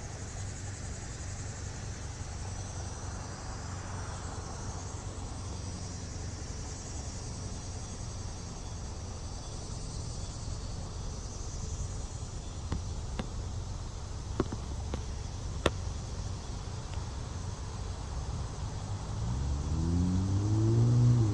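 Evening insects chirring in a steady high chorus over the low hum of a car idling. Two sharp clicks come about two-thirds of the way through. Near the end an engine's pitch climbs as a vehicle accelerates.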